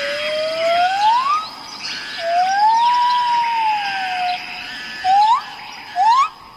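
Birds singing in a forest chorus: clear whistled notes that slide slowly upward and arch over, then quicker rising upslurs near the end, over a background of many higher twittering calls and a steady thin high tone.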